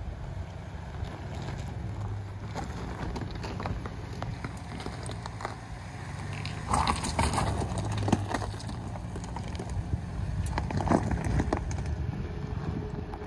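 GMC Yukon SUV crawling slowly over loose rocks and gravel: a steady low engine rumble, with tyres crunching and clicking on the stones and louder crunches about seven and eleven seconds in.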